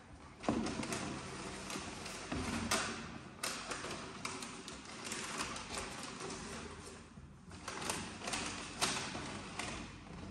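Cardboard shoebox being handled and unpacked, with paper rustling and short knocks and taps against the box.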